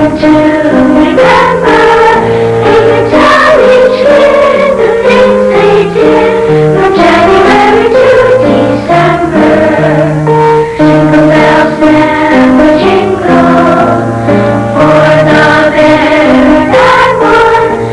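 A choir singing with accompaniment, holding sustained notes that change about every second.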